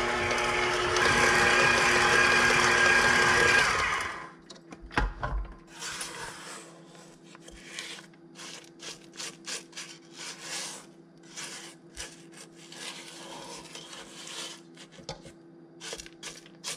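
KitchenAid stand mixer running steadily with its flat beater, mixing eggs into creamed butter and sugar, then switching off suddenly about four seconds in. After that a spatula scrapes the stainless steel bowl and beater in short, irregular strokes.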